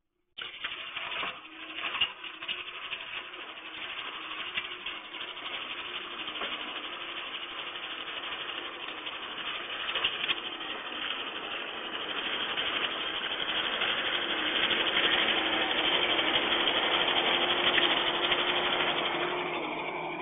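Compact track loader running and driving over a gravel driveway: a steady engine hum with rattling from the machine. The sound cuts in abruptly about half a second in and grows louder in the second half as the loader comes closer.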